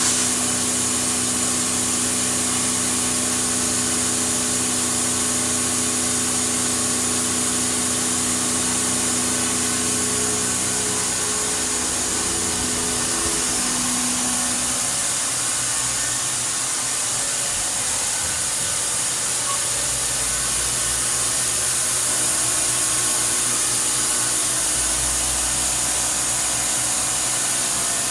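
Fadal VMC4020 vertical machining center running under power: a steady whirring hiss with a layered hum whose tones die away about halfway through, followed by a couple of brief low rumbles.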